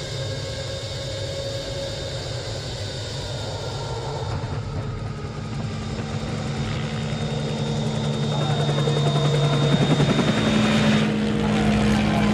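Jet fighter cockpit audio during an approach to a carrier deck: a steady engine whine and rumble with a thin high tone, getting gradually louder. The high tone cuts off shortly before the end.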